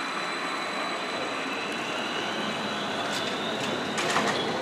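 Articulated electric trolleybus driving past and pulling away, with its traction whine rising in pitch over steady street noise. A few sharp clicks come near the end.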